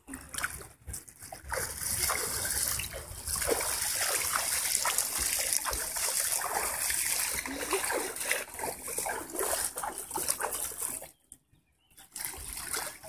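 Lake water splashing and trickling close to the microphone, with many small irregular splashes. The sound drops out for about a second around eleven seconds in, then returns.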